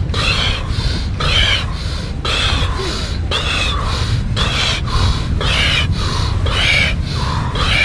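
Forceful, rhythmic deep breathing of a round of cyclic Wim Hof-style breathwork, in through the nose and out through the mouth, with a rushing breath about once a second. A steady low rumble lies underneath.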